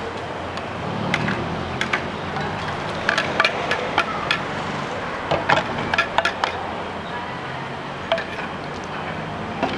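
A metal ladle and bowls clinking and knocking in irregular, sharp strikes as noodle soup broth is ladled from a stock pot and poured into bowls, over a steady low background hum.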